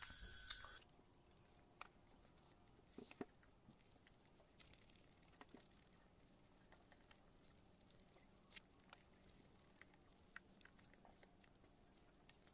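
Faint, sparse eating sounds of a person eating rice and fish curry by hand: soft chewing, lip smacks and small wet clicks scattered over near silence. A steady background hum cuts off under a second in.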